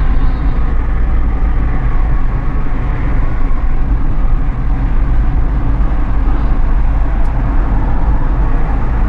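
Steady, loud rumble of a moving road vehicle: road and engine noise heard from on board.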